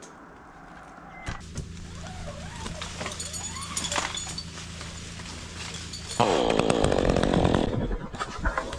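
Two-stroke chainsaw running at idle, then throttled up to full speed about six seconds in.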